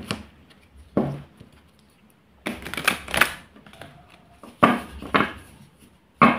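Tarot cards being handled and laid down on a tablecloth: short papery slaps and swishes about a second apart, with a longer run of rustling about two and a half seconds in.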